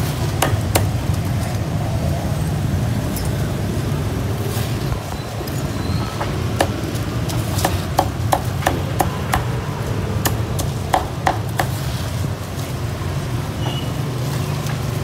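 Cleaver chopping roast pork on a chopping block: sharp, separate chops in irregular runs with short pauses between, over a steady low hum.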